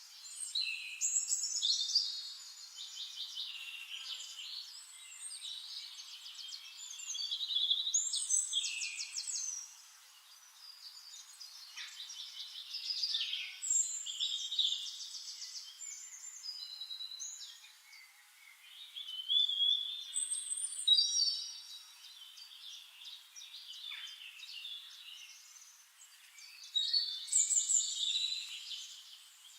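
Songbirds singing in a series of rapid trilled and whistled phrases, about five louder bursts a few seconds apart with quieter chirps between them.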